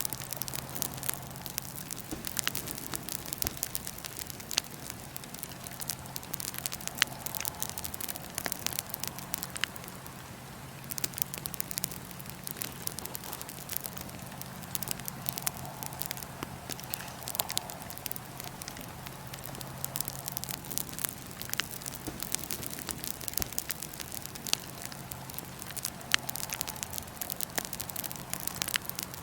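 Wood fire in a fire pit crackling, with irregular sharp pops and a few louder snaps over a steady hiss of flame, and a faint steady low hum beneath.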